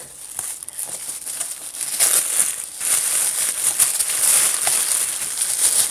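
White tissue wrapping paper crinkling and rustling as a small gift is pulled out of it, with a busier, louder stretch of crackling from about two seconds in.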